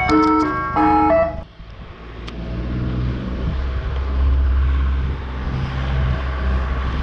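Ice cream van chimes playing a tune, cutting off suddenly about a second and a half in. After that, a steady low rumble of strong wind on the microphone.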